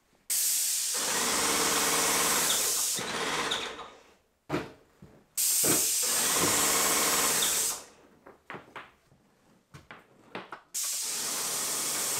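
Airless paint sprayer gun hissing in three long bursts as the trigger is pulled and paint is sprayed onto a wall, with a buzzing pump running under each burst. Short clicks and knocks fall between the bursts.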